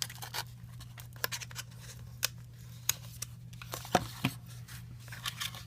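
Die-cut cardboard of a VR viewer kit being handled, with small pre-cut pieces popped out: a run of irregular clicks and light snaps, the loudest about four seconds in.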